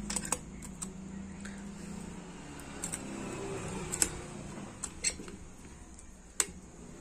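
Scattered light metallic clicks and taps as the gear shift shaft is handled and fitted into a Super Splendor motorcycle engine's crankcase, over a low background hum.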